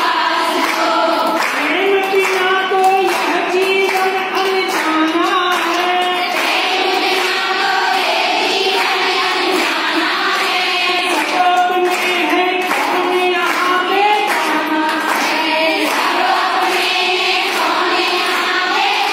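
A group of women singing a song together, with the melody held on long notes that step up and down.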